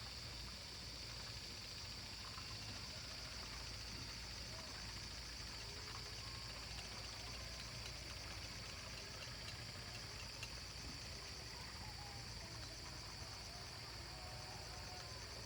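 Faint, steady high-pitched drone of a chorus of insects, unbroken throughout, over a low steady hum.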